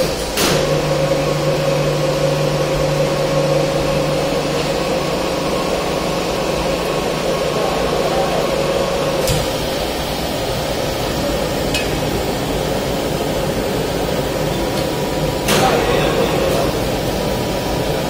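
Steady machinery hum and noise in a heat-treatment furnace shop around an open gas carburising furnace, with a few brief knocks. A low hum cuts out about halfway through.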